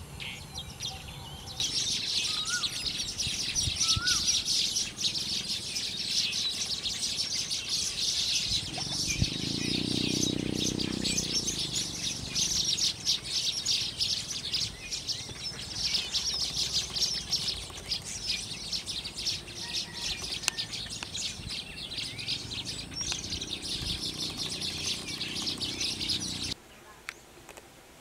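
A colony of Asian golden weavers chattering: a dense, continuous twittering of many small birds that cuts off suddenly near the end. A low hum swells and fades about ten seconds in.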